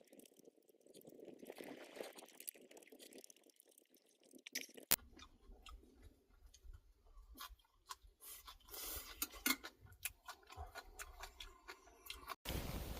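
A person eating close to the microphone: quiet chewing with many small sharp clicks and crunches.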